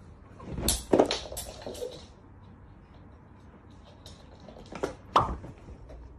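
A quick cluster of knocks and clattering bumps about a second in, then two sharp knocks near the end.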